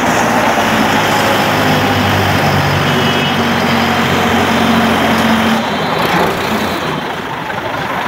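A tractor's engine running as it drives past on the road, over traffic noise. The steady engine note fades about five and a half seconds in.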